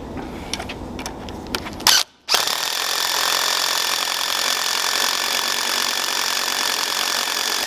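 Scattered clicks and knocks of metal parts being handled. About two seconds in, after a brief cut, an electric power tool runs steadily on metal, a loud even hiss with a faint steady whine, heating the throttle part.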